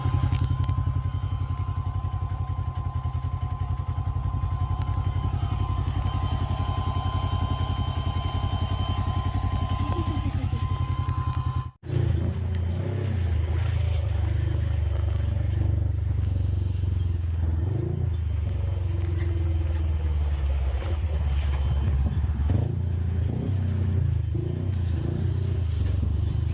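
Side-by-side off-road vehicle (Polaris RZR) driving, its engine drone steady with a thin high whine over it for the first twelve seconds. After a brief break, the engine note rises and falls.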